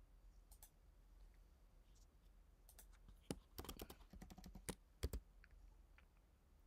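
Faint clicks of a computer mouse and keyboard. There are a couple of single clicks early on, then a quick run of key presses about three to five seconds in, and a sharper click just after.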